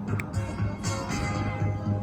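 Music with a steady beat and a deep, pulsing bass.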